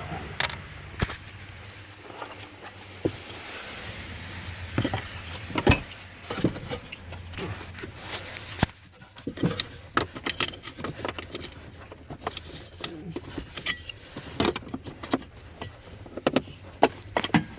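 Irregular clicks, taps and light rattles of hands fitting a new blower motor resistor board into a 2004 Ford F-150's heater housing, over a low steady hum.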